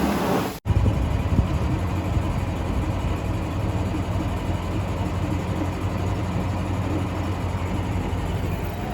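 Engine running steadily with a low rumble, coming in after a sudden break about half a second in.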